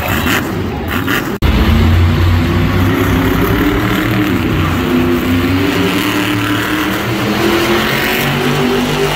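Monster truck engine running hard at high revs while spinning donuts, its pitch wavering up and down. There is a sudden brief break about a second and a half in, after which the engine sound comes back louder.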